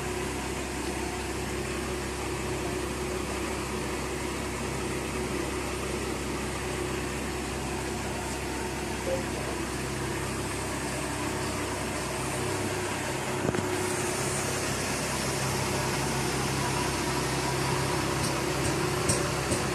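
Machinery running steadily: an engine-like drone with a constant low hum. About two-thirds of the way through a higher hiss joins in, and a few light clicks sound near the end.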